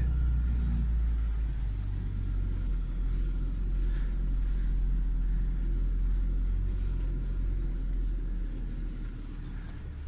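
UAZ Patriot's ZMZ Pro petrol engine running steadily at low revs as the SUV crawls off-road in low-range four-wheel drive.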